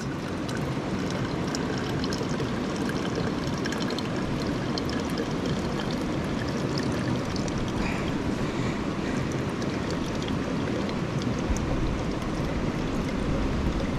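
Mountain stream running steadily over rocks, a constant rush of water with small splashes.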